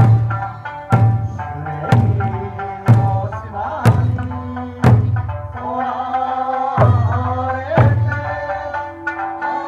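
Large Eisa barrel drums (ōdaiko) struck together about once a second, each hit deep and ringing, over an Okinawan folk song with a singing voice.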